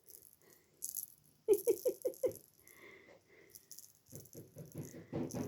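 Toy rattle on a fishing-rod teaser toy shaken in quick bursts: about five rattles in under a second, about a second and a half in, then a longer run of rattling near the end.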